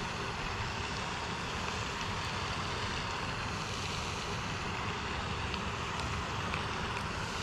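Steady outdoor noise: wind buffeting the microphone over the constant splashing of a pond fountain, an even hiss with a fluctuating low rumble.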